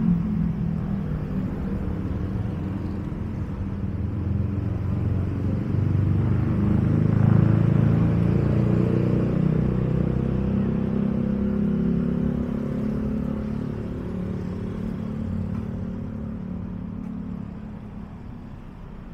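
Street traffic: motor vehicle engines running close by, loudest about seven seconds in, then fading away near the end.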